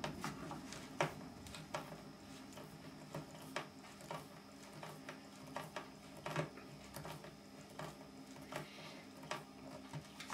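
Hand screwdriver driving wood screws into small pieces of wood: faint, irregular clicks and small knocks as the screws are turned in and the pieces shift on the bench.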